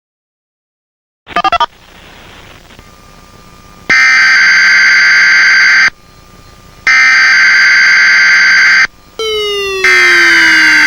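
Emergency-alert warning tone: a quick stutter of beeps, then a loud, harsh buzzing alarm that sounds three times for about two seconds each with short gaps. A falling siren-like sweep comes just before the third blast.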